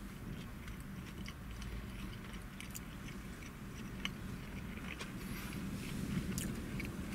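A person chewing a soft, mushy mouthful of vegan burger with the mouth closed: scattered wet mouth clicks and smacks, the sharpest about four seconds in, over a low steady hum.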